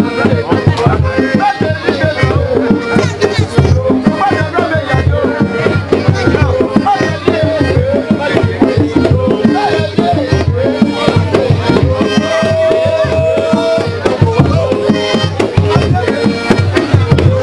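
Music with dense, fast hand drumming and percussion, with melodic lines over it and one held note about twelve seconds in.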